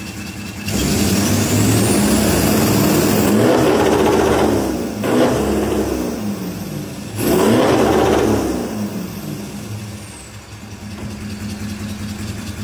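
Toyota 1VD-FTV V8 turbo-diesel in a Land Cruiser, heard at the exhaust tip as it is revved from idle twice. The first rev is held for about four seconds. The second, shorter one about seven seconds in falls back to idle.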